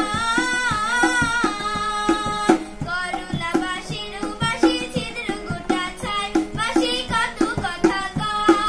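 A woman singing a Bengali song to harmonium accompaniment, with a tabla keeping a steady rhythm under held harmonium chords.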